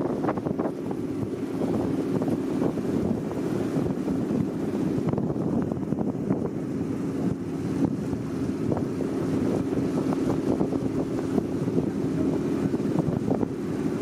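A tour boat's engine running steadily under way, a constant low hum, with wind buffeting the microphone in uneven gusts.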